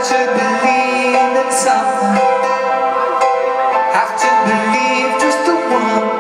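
Live band music with keyboard and guitar playing held chords, heard through a phone's microphone in the audience.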